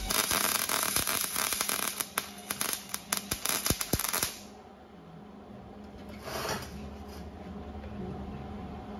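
MIG welder arc crackling and popping as it lays a bead on the thick steel of a grille frame, then cutting off suddenly after about four seconds.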